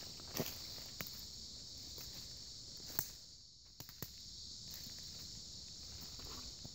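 Steady high-pitched chorus of insects, with a few scattered sharp clicks.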